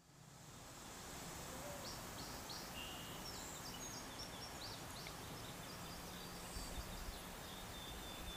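Outdoor meadow ambience: a steady background hiss that fades in over the first second, with birds chirping in short high calls through the middle.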